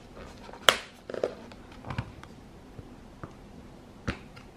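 Clear plastic snap-on lid being pried off a paper soup cup: a sharp plastic crackle about a second in, then a few scattered clicks and crinkles as the lid comes free.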